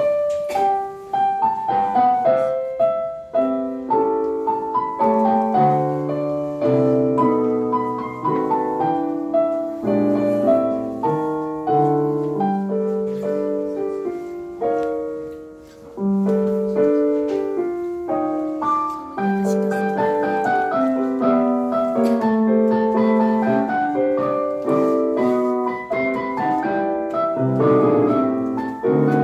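Piano four-hands, two players at one Kurzweil digital piano, playing a Christmas medley. The music begins at once, breaks off briefly about halfway through, then carries on.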